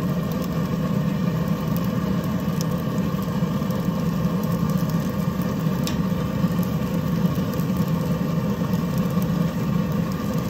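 Propane burner of a Blackstone pizza oven burning steadily at high flame, an even low rush. Two faint ticks come through it, about a quarter and just over halfway in.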